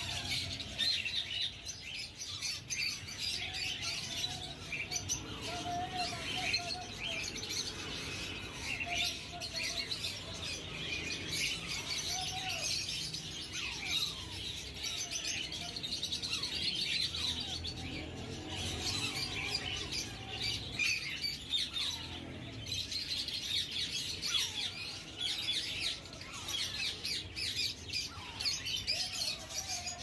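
Alexandrine parakeet chicks chirping without a break while being hand-fed: a dense stream of short high calls, with now and then a lower, sliding squeak.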